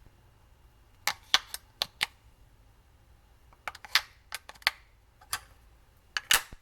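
Fire button of a Vaporesso Polar vape mod clicked repeatedly: a run of five quick clicks, then more clicks in uneven groups. The mod is being tried for power-on but won't turn on after a battery swap.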